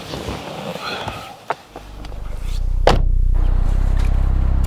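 Car door opened and slammed shut, one sharp bang about three seconds in. Under it a steady low hum fades up from about two seconds in.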